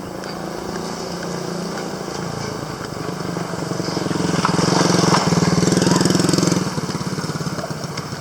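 A motor vehicle's engine running close by, growing louder about four seconds in and easing off near the end, as it passes.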